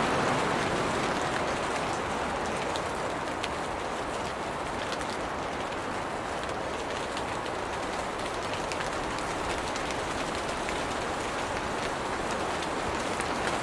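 Steady rain falling on leafy tree branches: an even hiss of rainfall with scattered sharp ticks of single drops striking leaves.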